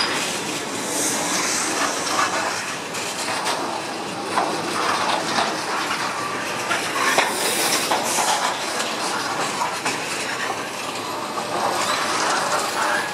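Freight train's bogie hopper wagons passing close by at speed: a steady rumble with the clatter of wheels over the track.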